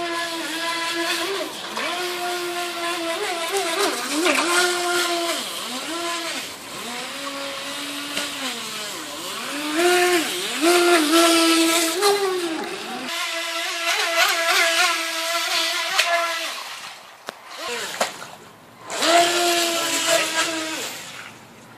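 Electric motor of a small RC racing boat whining, its pitch rising and falling again and again as the throttle is worked. Near the end the whine drops away and then returns briefly.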